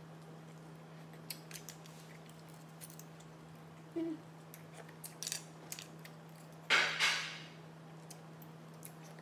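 Light scattered clicks of a metal fork and spoon against mussel shells and a plate while eating baked mussels, with a brief louder hiss about seven seconds in, over a steady low hum.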